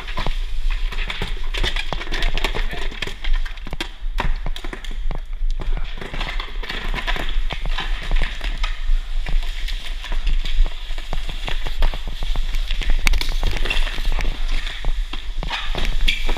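Irregular sharp cracks and ticks of airsoft gunfire and BB hits during an indoor game, over a steady low hum.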